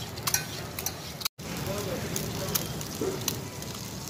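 Burger patty and sausage sizzling steadily in oil on a steel flat-top griddle, with a few sharp clicks of a metal spatula against the steel near the start. The sound cuts out for an instant about a second in, then the sizzle resumes.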